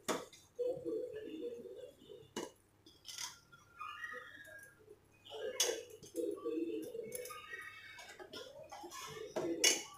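Metal ladle stirring thick curry in a stainless steel pot, knocking against the pot's side in a handful of sharp clinks spaced a second or more apart, with a louder one near the end.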